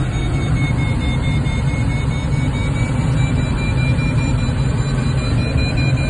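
Steady rush of air past a glider's cockpit in flight at about 40–45 mph, a constant low rumble without breaks. A faint steady high tone runs underneath.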